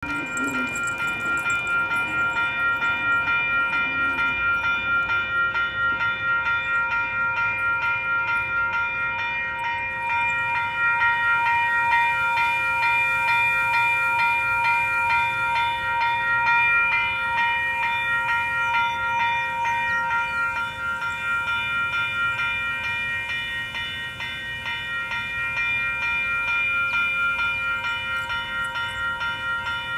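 Railroad grade-crossing warning bell ringing continuously in rapid, evenly repeated strikes.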